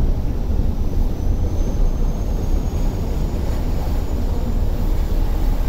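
Steady low rumble of a Star Ferry's engine running under way, mixed with water and wind noise, with a faint high whine that rises slightly in pitch.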